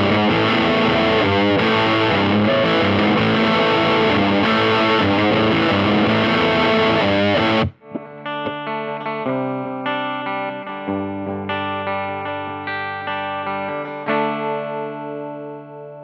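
Gibson Les Paul Studio electric guitar through a Marshall Class 5 amp, heavily distorted by a Boss DS-1 pedal and picked up by a Stellar X2 condenser microphone. It cuts off sharply about eight seconds in, followed by clean picked notes and chords that ring out at the end.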